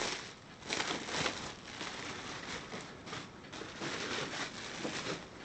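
Plastic cling wrap crinkling and rustling in irregular bursts as it is unwrapped from a camcorder by hand.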